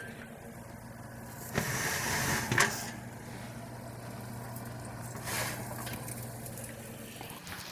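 Oven being opened and a roasting pan handled inside it. A rustling swish begins about a second and a half in and ends in a sharp click, and a shorter swish comes about five seconds in, over a steady low hum.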